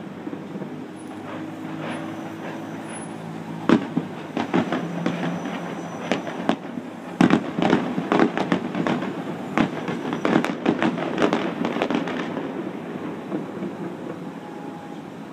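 Fireworks going off: a rapid run of sharp bangs and crackles, densest from about four seconds in to about twelve, then dying away to a low background rumble.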